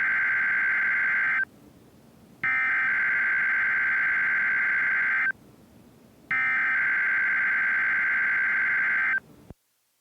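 NOAA Weather Radio Emergency Alert System SAME header: screeching digital data tones sent three times. The first burst is already under way and stops about a second and a half in; the next two each last about three seconds, with a second's gap between. Here it marks the start of a Required Weekly Test.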